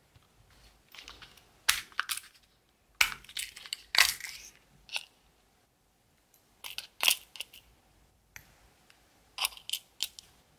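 Sharp plastic clicks and rattles from a small multi-compartment plastic box of rhinestones and nail charms being handled, with metal tweezers tapping and picking among the stones. The sounds come in several quick clusters, the busiest about three to four seconds in.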